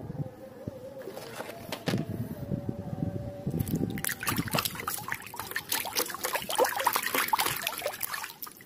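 Water splashing and sloshing in a plastic tub as a hand swishes and scrubs a muddy plastic toy animal, the splashing growing busier about four seconds in.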